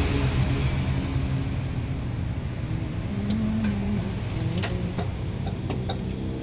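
Mitsubishi PS100 diesel truck engine running steadily, with a handful of sharp clicks in the second half.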